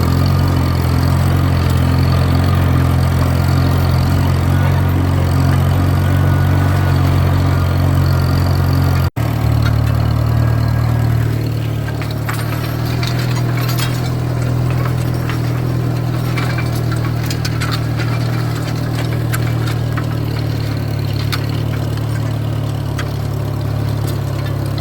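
Tractor engine running steadily, pulling a John Deere JB disc harrow. The sound cuts out for an instant about nine seconds in, and afterwards many sharp metallic clinks and rattles come in over the engine.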